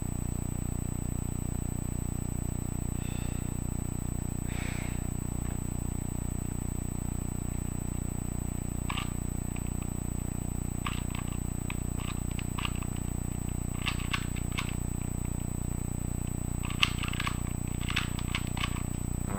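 2x2 plastic puzzle cube being turned quickly by hand, its layers clicking in short rapid clusters from about halfway through. A steady low electrical hum sits under it throughout.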